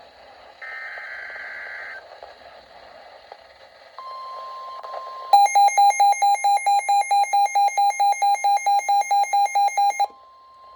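NOAA Weather Radio alert signal. First comes a short burst of warbling SAME header data tones. About four seconds in, the steady 1050 Hz warning tone starts. A second later the weather radio receiver's own alarm sounds over it: loud, rapid beeping about five times a second. The beeping cuts off abruptly after about five seconds, leaving the faint warning tone.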